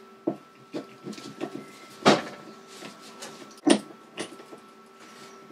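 Steel parts of a lathe quick-release tool post clicking and knocking together as the cam is fitted back into the body, with two louder sharp knocks about two and three and a half seconds in.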